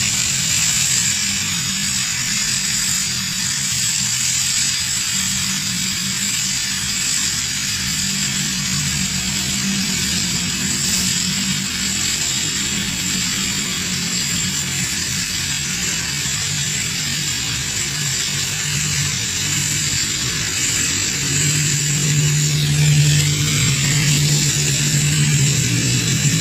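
LPG gas welding torch flame hissing steadily while it melts aluminium filler into a cylinder head repair. A low steady hum runs underneath and grows louder about three-quarters of the way through.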